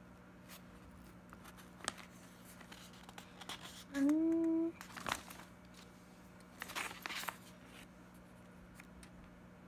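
Paper rustling and crinkling as a printed sheet is handled and a page is turned, with a short hummed "mm" from the reader about four seconds in, over a steady low hum.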